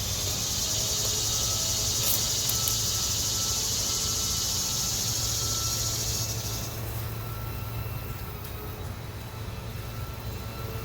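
Insect buzzing outdoors, a steady high drone that stops about two-thirds of the way through, over a low steady hum.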